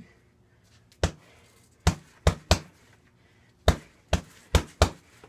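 Strikes landing on a heavy punching bag: eight sharp thuds, coming in quick bunches of two to four.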